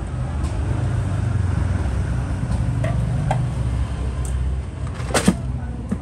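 A steady low engine-like rumble, as of motor traffic, with a few sharp clicks over it; the loudest click comes about five seconds in.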